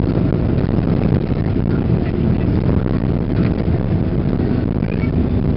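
Boeing 777-300ER on its landing rollout, heard from the cabin: a loud, steady, deep rumble of its GE90 engines and the wheels on the runway, with a faint steady tone over it.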